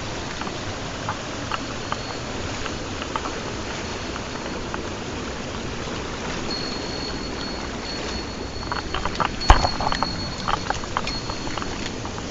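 Mountain stream rushing steadily, with scattered sharp clicks and knocks that bunch up about three-quarters of the way through, where one knock is the loudest sound.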